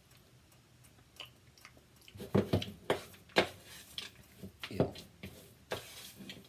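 Thick cookie dough being mixed in a bowl: a run of irregular wet squishes and light knocks that starts about two seconds in.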